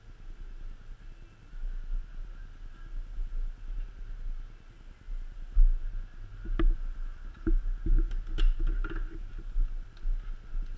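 Hands handling a cardboard-and-plastic retail box, with a cluster of sharp clicks and taps of the packaging in the second half, over a low steady rumble.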